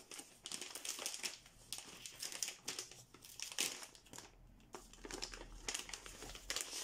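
Clear plastic packaging bag around a tablet case crinkling and rustling as it is handled and turned over, in irregular crackly rustles.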